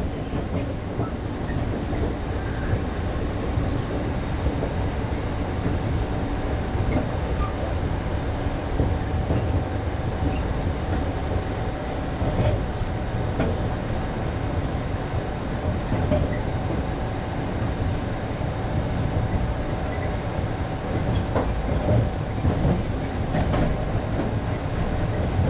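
MBTA Red Line subway car running along the track, heard from inside the car: a steady rumble of wheels on rails with a faint steady tone over it and occasional light clicks.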